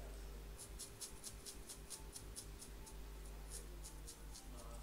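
Faint, light scratchy ticking, about five a second: a soldering tool working over the solder-covered CPU pads of an iPhone 6 logic board. Underneath runs a steady low workshop hum with a faint held tone that stops near the end.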